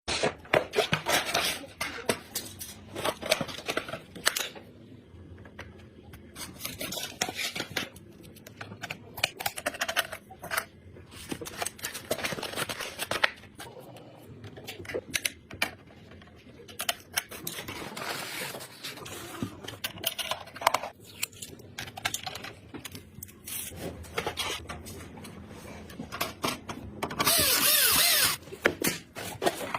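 Computer parts being handled and fitted together: irregular clicks, taps, scrapes and rattles of plastic and metal. Near the end comes a loud, even hiss lasting about a second.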